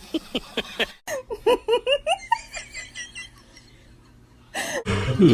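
A woman laughing in a quick run of high-pitched bursts, a reaction laugh dubbed over the clip. Louder music starts near the end.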